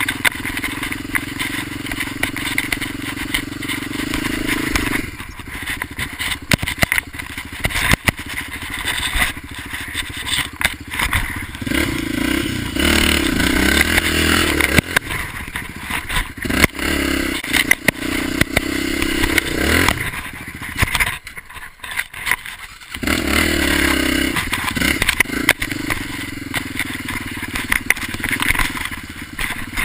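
Dirt bike engine running under changing throttle while riding over rough ground, the note rising and falling. About two-thirds of the way in, the engine drops away for a second or two, then comes back up.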